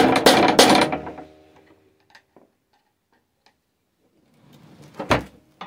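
Hammer striking a flat screwdriver driven into a lawnmower engine's broken-off muffler thread, about three quick metal blows a second, cutting a slot in the stuck thread. The blows stop about a second in and the metal rings away; a few faint taps follow, then a single knock near the end.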